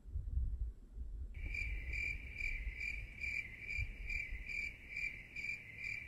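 A cricket chirping steadily at about two to three chirps a second, starting a little over a second in. Under it are low handling rumbles and a few soft thumps.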